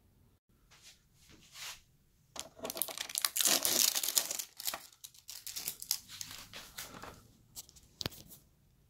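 Packaging being torn and crinkled as the coiled power cord is pulled free from the back of a flat-screen TV, loudest for a second or two near the middle, with one sharp click near the end.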